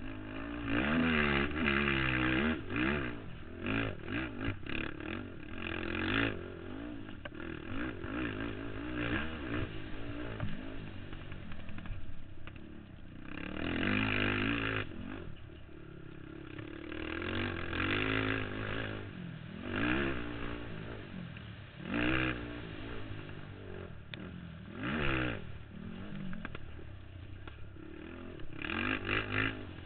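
Racing ATV's engine revving hard and backing off again and again, its pitch swooping up and down, with several loud bursts of throttle. Heard up close from a camera mounted on the quad.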